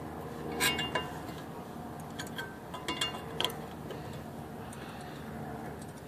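Light metallic clicks and clinks of a new rear brake pad being pushed up into the corners of the caliper bracket, a handful of sharp ticks in the first three and a half seconds, then only faint background.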